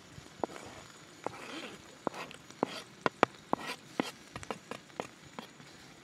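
Knife chopping salad vegetables on a cutting board: a run of irregular sharp knocks, several a second, most crowded through the middle.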